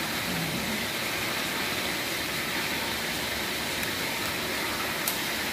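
Chicken pieces deep-frying in a wok of hot oil, a steady even sizzle. There is a single light click near the end.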